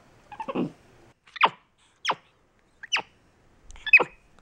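Capuchin monkey giving four short, sharp calls about a second apart, each falling steeply in pitch, after a brief lower sound near the start.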